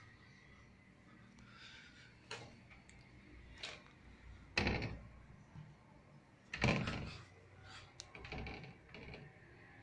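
A handful of irregular dull knocks and thumps over a faint hiss, the two loudest about halfway through and about two thirds through.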